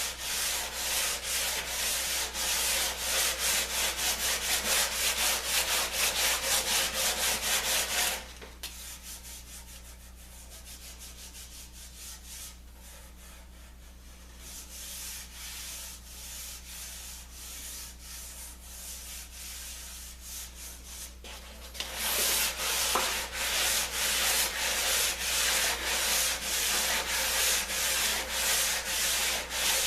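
Wood being sanded by hand with quick, even back-and-forth strokes, about four a second. The sanding stops about eight seconds in and picks up again about twenty-two seconds in.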